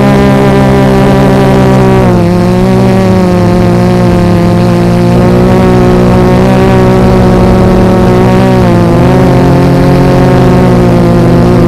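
A Tarot 650 multirotor's electric motors and propellers droning steadily, heard from its onboard camera. The pitch dips briefly about two seconds in and again some six seconds later as the throttle eases.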